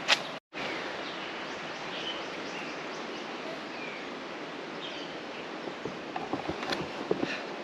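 Birds chirping in short, falling calls over a steady outdoor hiss, with a run of footsteps on the trail near the end.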